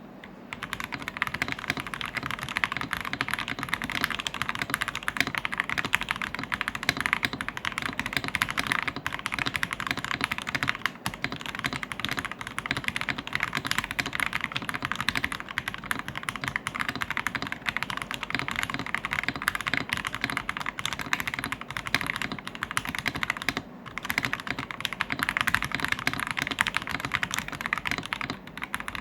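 Fast continuous typing on a VortexSeries GT65 Lite mechanical keyboard with SP Star Polaris Grey switches: a dense run of key clacks, with brief pauses about three quarters of the way through and near the end.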